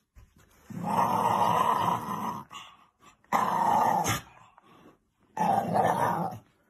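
A Shiba Inu growling: three long growls, the first about a second and a half, the other two about a second each.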